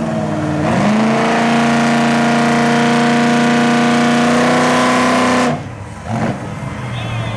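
Chevy pickup truck engines held at high revs under full load while the trucks pull against each other in a tug of war. Their pitch climbs about a second in, then holds steady, and about five and a half seconds in they let off sharply, dropping to a much lower, quieter engine sound.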